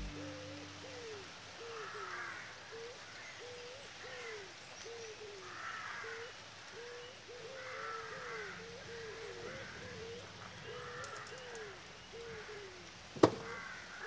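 Faint outdoor birdsong: many short, low rising-and-falling calls repeating throughout, with fainter higher calls over them. A single sharp knock sounds near the end.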